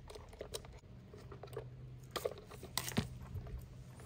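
Wire strippers biting into and pulling the plastic insulation off a thin wire: faint crunches and a few sharp clicks, the loudest about three seconds in.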